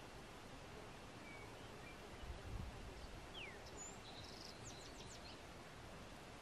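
Faint outdoor mountain ambience: a steady soft hiss with a few distant small-bird chirps, among them a short falling note about three and a half seconds in and a quick cluster of high chirps near the end. A brief low thump sounds about two and a half seconds in.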